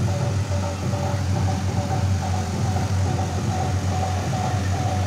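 A steady low engine drone running without a break, with faint wavering higher tones over it.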